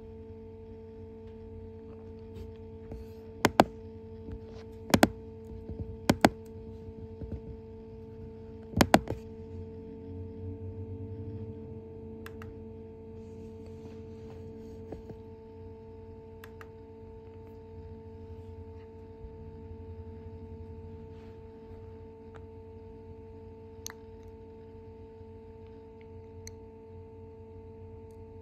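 Asus S400CA laptop hard drive spinning with a steady whine, broken by a handful of sharp clicks, mostly in the first nine seconds or so, and a few fainter ticks after that.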